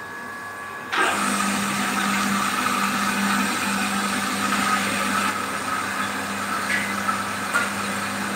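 Commercial RO water plant's pump motor switched on, starting abruptly about a second in and then running steadily with a constant hum and hiss.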